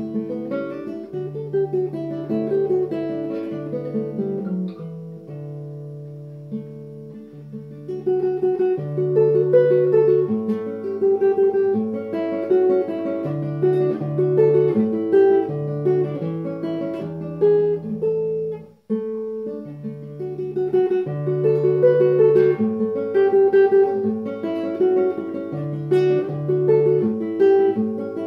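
Classical nylon-string guitar played solo: a fingerpicked melody over repeated bass notes. There is a softer passage a few seconds in, and the playing stops briefly about two-thirds of the way through, then goes on.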